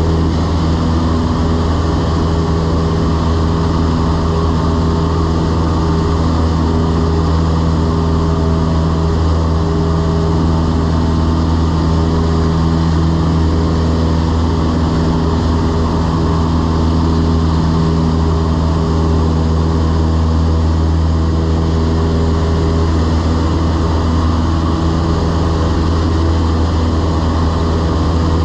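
Cessna 172's piston engine and propeller droning steadily in flight, heard from inside the cabin: a loud, even, low hum with no change in pitch.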